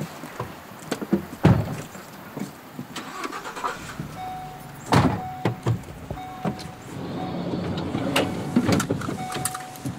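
People and gear getting into a passenger van: scattered knocks, clicks and shuffling, with two heavier thumps about 1.5 and 5 seconds in, and short chime tones from the dashboard sounding now and then. Near the end the driver's seatbelt is pulled across.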